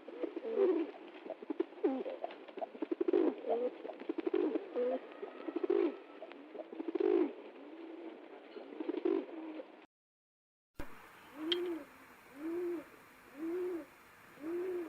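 Pigeons cooing. First several birds coo over one another in a dense, overlapping chorus. After a short break, a single pigeon coos four times, about a second apart.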